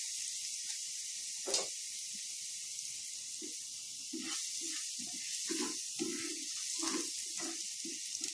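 Minced garlic sizzling in hot oil in a nonstick frying pan: a steady hiss. There is one sharp click about a second and a half in and soft, irregular low bumps through the second half.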